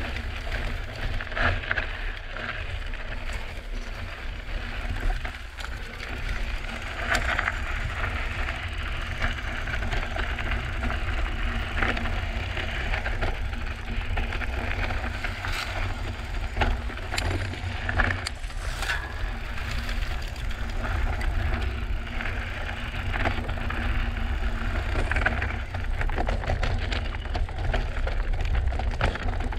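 Drop-bar monstercross bike riding a rocky trail: tyres crunching over gravel and rock, with frequent sharp knocks and clatters from the bike over a steady low rumble.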